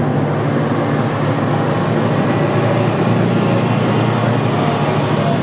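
Steady low drone of a motor vehicle engine running nearby, with no change in pitch or level.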